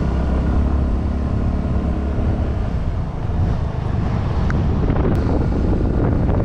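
Two-wheeler on the move along a road: a steady engine hum with road and wind rush. The hum's pitched drone is strongest in the first couple of seconds.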